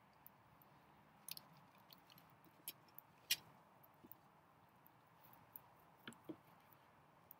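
Faint, scattered knife clicks and knocks on a wooden chopping board as vegetables are handled and cut, with a few small crunches; the sharpest click comes about three seconds in.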